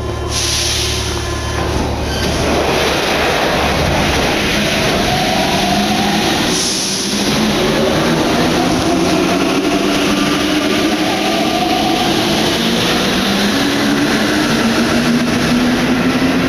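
Rubber-tyred Paris Métro Line 14 train pulling out of the station, its traction motors whining and rising slowly in pitch as it accelerates. There is a brief hiss near the start and another about halfway.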